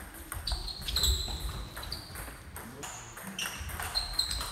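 Celluloid-type table tennis ball knocking back and forth between bats and table in a doubles rally: a string of sharp clicks roughly a second apart, some followed by a brief high ring.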